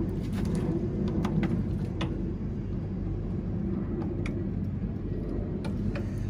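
A steady low machine hum, with several short sharp clicks and knocks scattered through it.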